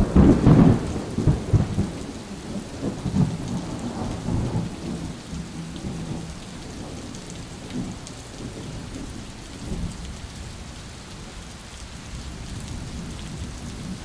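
Thunderstorm: thunder rumbling loudly at the start and fading over about five seconds, over steady rain, with two fainter rumbles later on.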